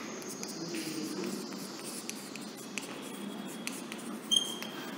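Chalk writing on a blackboard: faint scratching with small taps, and a short high squeak of the chalk about four seconds in.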